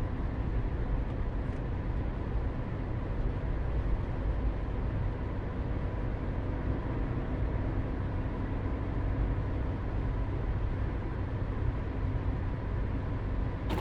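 A motor vehicle driving at a steady speed: a continuous low engine hum under even road noise, unchanging throughout.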